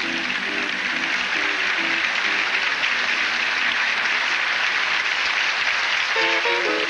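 Audience applauding and cheering in a club at the end of a song, with the last acoustic guitar notes fading out in the first two seconds. Near the end, guitar notes start up again.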